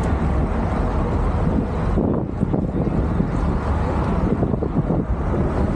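Wind buffeting the microphone of a camera riding along on a moving bicycle, a steady low rumble.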